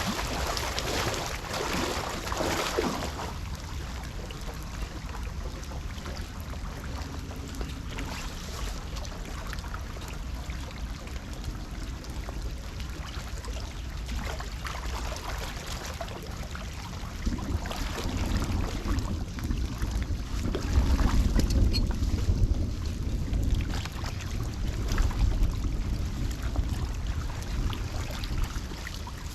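Floodwater sloshing and rushing, with wind rumbling on the microphone; the rumble grows louder about two-thirds of the way through.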